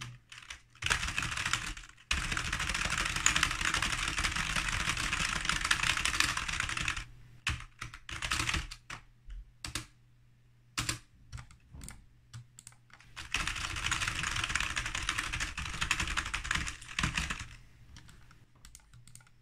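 Typing on a computer keyboard: two long runs of rapid keystrokes lasting several seconds each, with scattered single key presses between them and toward the end.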